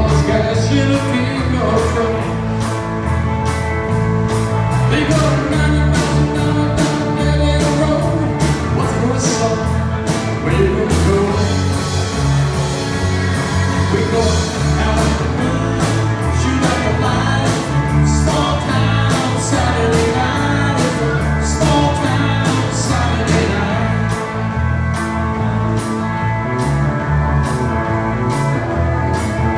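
Live country band playing a song over a PA: electric and acoustic guitars over bass and drums, with a steady beat.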